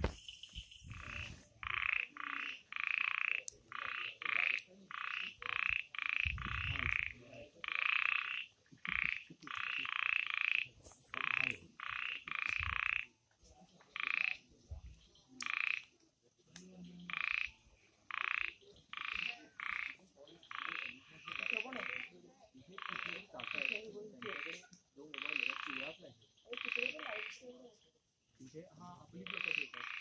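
A narrow-mouthed frog calling with its throat sac inflated: a long series of short calls, about one or two a second, broken by brief pauses. The observer tentatively takes it for Uperodon mormoratus, though he is not sure of the species.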